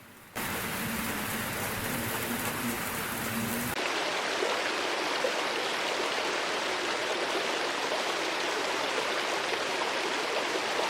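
Steady hiss of water, rain or rushing flow, with no pitched sound in it; its character changes abruptly about four seconds in.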